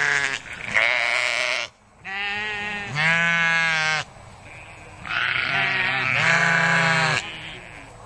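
Sheep bleating repeatedly: about six loud, quavering bleats of roughly a second each, mostly in back-to-back pairs, with short pauses between the pairs.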